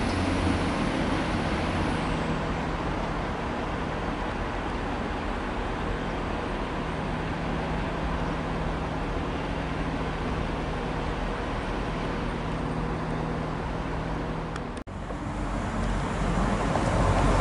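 Transport for Wales Class 175 diesel multiple unit running slowly towards the listener, its diesel engines giving a steady low hum over the general running noise. About fifteen seconds in, the sound drops out for a moment, and a second Class 175 is heard approaching, growing louder.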